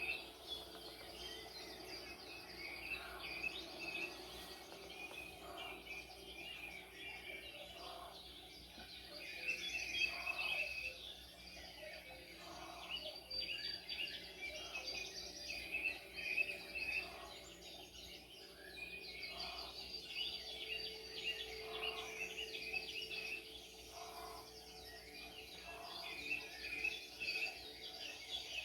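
Several songbirds chirping and singing over one another in a dense, continuous chorus of high twittering notes. A lower short call repeats about every two seconds underneath.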